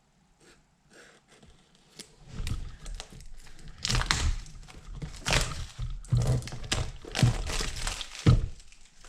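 Packaging of a puzzle cube being opened by hand: a few faint clicks, then repeated loud crinkling and tearing of the wrapping and box from about two seconds in.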